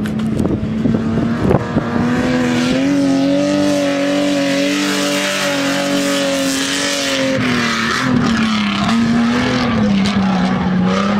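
An SUV's engine held at high revs as it climbs a steep sand dune. The note rises slightly a couple of seconds in, holds steady, then drops and wavers near the end.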